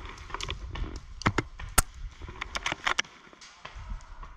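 Airsoft gunfire: a string of scattered, irregular sharp shots and snaps, the loudest a little under two seconds in and a quick cluster around three seconds in. A low rumble of movement on the microphone runs under the first half.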